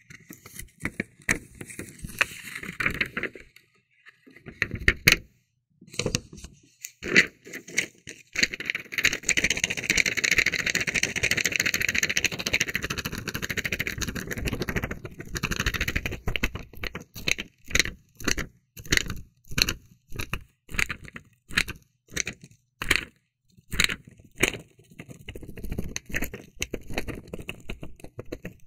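Close-up crackling, scraping and clicking handling sounds. In the middle there is a long stretch of dense crackling, and after it a run of sharp clicks, about two a second.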